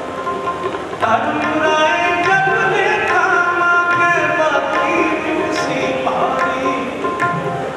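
Sikh kirtan music: Crown Flute harmoniums playing a melody over tabla strokes, growing louder about a second in.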